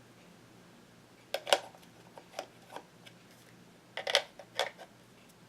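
Plastic clicks and taps of a camcorder battery being handled and fitted into its charger. A sharp pair of clicks comes about a second and a half in, then a few lighter taps, and another cluster of clicks near the end.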